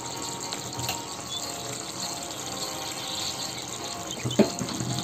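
Mushroom curry simmering in a kadai: a steady bubbling hiss, with a single knock about four seconds in.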